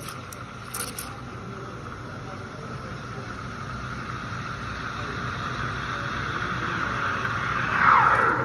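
Espresso machine steam wand steaming milk in a stainless steel pitcher: a steady hiss that slowly grows louder. Near the end a brief louder tone sweeps down in pitch.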